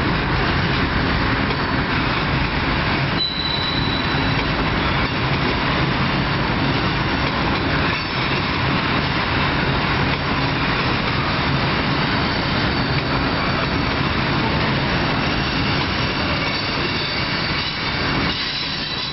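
CN freight train of tank cars rolling past, a steady loud rumble of steel wheels on the rails. From about three seconds in, a thin high squeal from the wheels rides on top of the rumble.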